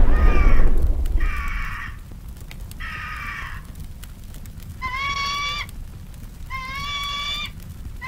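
Eagle cry sound effect: six high, drawn-out calls, each under a second. The first three are fainter and fall slightly in pitch; the last three are louder and held at a steady pitch. Under the first calls, the rumble of an explosion dies away over the first second and a half.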